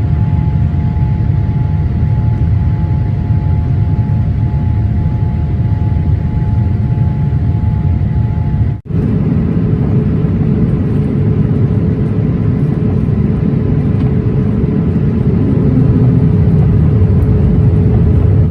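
Steady low roar of a GE-engined Boeing 787's jet engines, with faint steady whining tones over it. About nine seconds in the sound cuts out for an instant and a second recording of the same roar follows, with a lower whine.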